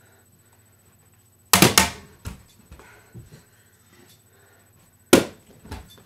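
Plastic TV remote thrown into a running fan and clattering off hard surfaces: a loud clattering impact about a second and a half in, a few lighter knocks after it, then a second loud crack near the end.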